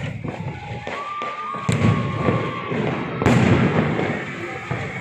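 Many fireworks going off at once: a dense crackle of bangs with heavier booms at the start, about a second and a half in, and again just past three seconds. A high, steady whistle is held for over a second partway through.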